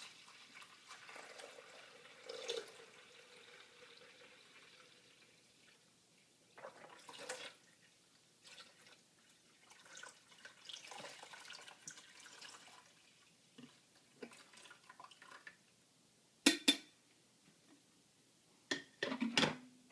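Water poured from the carafe into a drip coffee maker's reservoir, a faint trickle during the first five seconds or so. Then light handling sounds, with a few sharp knocks near the end.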